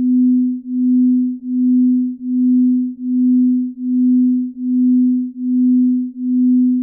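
Binaural-beat sleep tone: a single low, pure steady tone that swells and fades evenly a little more than once a second.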